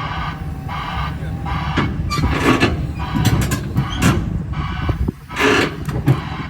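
Excavator diesel engine running steadily while the machine creeps forward, with repeated metallic squeaks and clanks every half second to a second.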